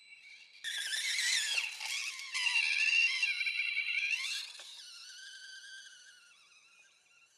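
Small electric motor and gear drive of a 1/24-scale FMS FCX24 Unimog 421 RC crawler whining, its pitch rising and falling with the throttle. It starts about half a second in and fades away over the last few seconds as the truck drives off.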